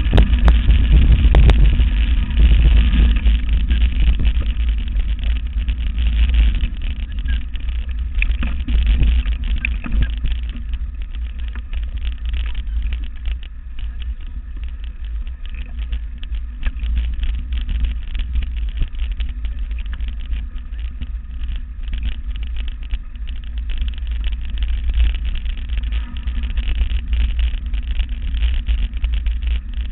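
Rumble of wind and vibration on a bike-mounted camera's microphone as a mountain bike runs fast over a rough dirt forest trail, with frequent small rattles and knocks from the bike. Louder for the first few seconds, easing off after.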